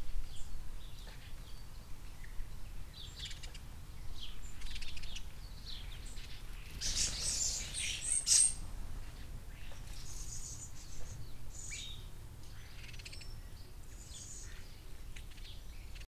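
Sparrows chirping: short high chirps come on and off, with a busier, louder run of chirps about seven seconds in.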